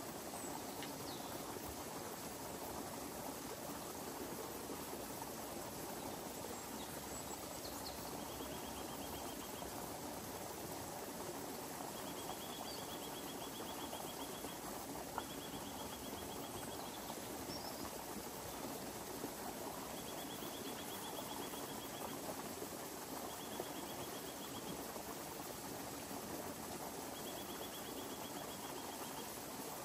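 Outdoor ambience: a steady rushing background, over which a short, flat, high trill repeats every few seconds, about six times, starting a little way in.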